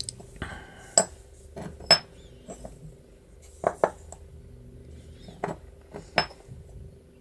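Small metal parts of a Hueck gearbox window handle being handled and set down on a wooden workbench: a handful of sharp clicks and clinks spread out, two of them in quick succession a little before the middle, over a faint steady hum.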